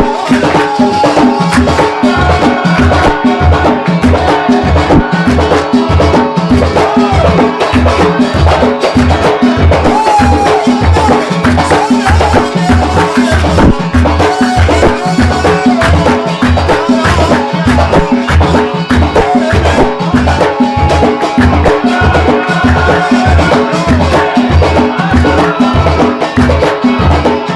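Gulf folk band music: a steady, fast beat of deep drum hits and sharp percussion strokes, with a wavering melody over it.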